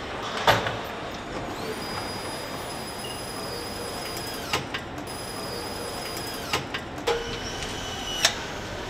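Car assembly-line noise with a handheld electric nutrunner whining as it spins up and winds down, twice in the middle, then a lower whine near the end, with sharp metallic clicks in between.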